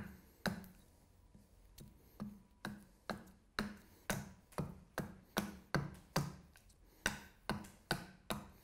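Carving hatchet chopping a wooden spoon blank held upright on a stump chopping block: a run of sharp chops, settling into about two to three a second, with a short pause a little past the middle.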